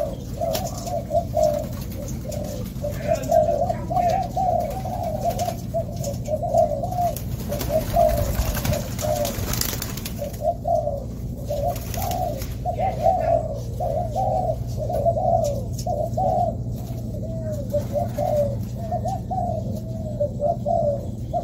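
Spotted doves cooing over and over, several birds calling at once so that the short coos overlap almost without a break. A brief rush of noise comes through about eight to ten seconds in.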